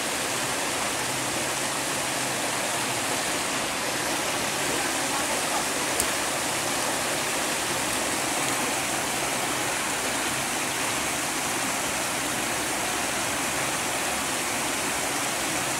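Water rushing steadily out through a concrete sluice gate into a pool, a constant even rush.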